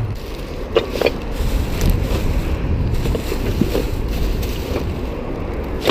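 Baby stroller's wheels rolling over a paved pavement, a steady rumble with a few light knocks and rattles, the buggy loaded with full rubbish bags.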